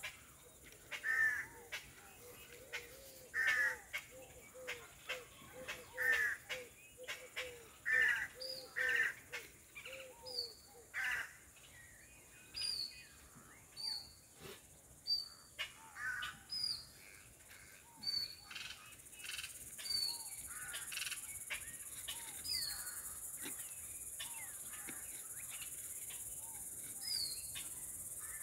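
Birds calling: a call repeated about once a second for the first ten seconds or so, with short high chirps scattered throughout, over a steady high insect buzz.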